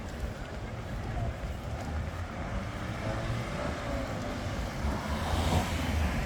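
City street traffic: a steady low rumble of motor vehicles, with a car passing close and getting louder about five seconds in.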